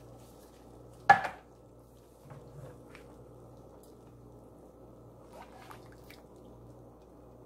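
Wooden spoon stirring cream and melted butter in a nonstick wok: one sharp knock of the spoon against the pan about a second in, then a few softer scrapes and taps.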